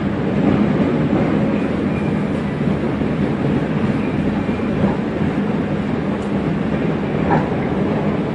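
Inside a Chicago CTA Red Line train car, a steady rumble and rail noise as the train runs.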